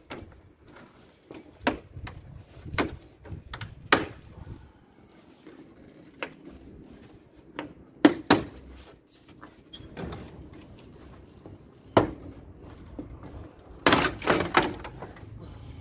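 About a dozen sharp plastic knocks and clicks at uneven intervals, with a quick cluster near the end: a Toyota Hilux's plastic front grille being worked loose, its clips and tabs popping free.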